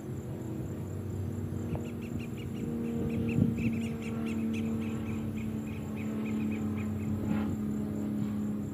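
Diesel locomotive running with a steady low hum in the distance as the train approaches. An insect chirps in quick even pulses, about five a second, from about two seconds in until about seven seconds, and a single sharp knock comes about three and a half seconds in.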